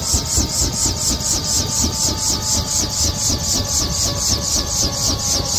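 UH-1 Huey helicopter shutting down: the two-bladed main rotor beats in a quick, even rhythm of about five pulses a second over a low rumble, while the turbine whine slowly falls in pitch as it winds down.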